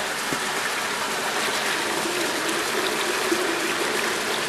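Water gushing steadily from a pipe outlet into a concrete tank, splashing onto a bed of wet coffee beans.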